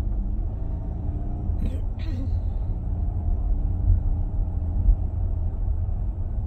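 A minivan driving slowly, heard from inside the cabin: a steady low rumble of engine and road, with a couple of brief sharp sounds about two seconds in.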